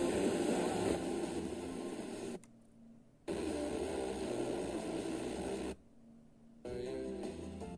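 FM radio tuner stepping through the band: weak, static-laden station audio full of hiss that cuts out twice for about a second as the tuner mutes between frequency steps, then comes back.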